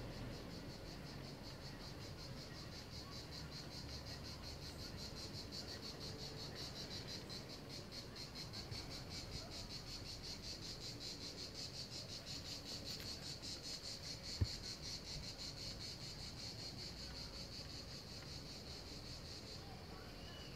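Cicadas chirring in a steady, finely pulsing high-pitched drone from the trees below. A single brief knock about two-thirds of the way through.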